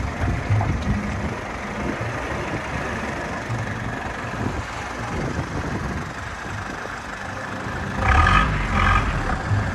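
Jeep engine running as the vehicle jolts along a rough, rocky dirt track. Near the end come two short horn toots.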